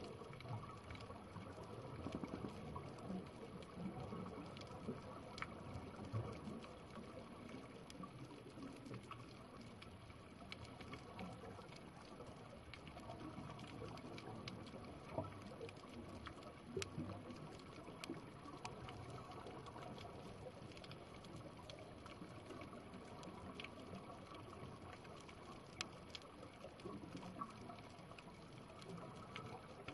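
Underwater reef ambience: a faint, even wash of water noise with scattered sharp clicks all through.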